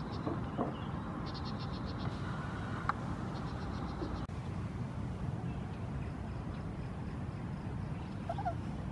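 Steady low outdoor hum with several short, high, rapid trills of about ten pulses a second in the first few seconds, and a brief pitched squeak near the end.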